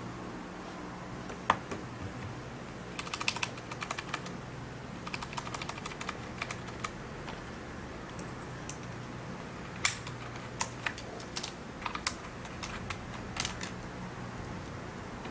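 Keys being pressed on a Filco FKB22MB mechanical numeric keypad: sharp clicking keystrokes in short runs with pauses between them.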